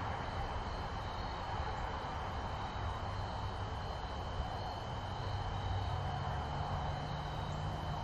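Low, steady engine drone of a distant aircraft, its hum swelling slightly about six seconds in, over a steady high-pitched insect trill.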